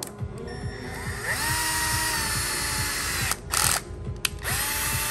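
Cordless drill running a 5 mm bottom tap through the threads of a compressor connecting rod to clean them: the motor spins up with a rising whine about a second in and runs steadily, breaks off briefly with a noisy clatter a little past three seconds, then spins up again near the end.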